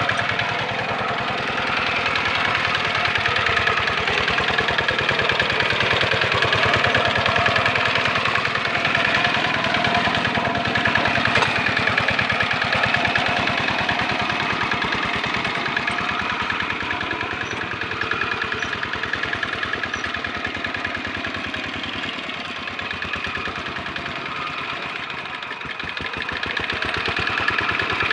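Single-cylinder Dongfeng diesel engine of a Quick Impala two-wheel hand tractor running steadily under load while plowing wet paddy mud, with a rapid, even firing beat. The engine sound eases a little in the latter part and grows again near the end.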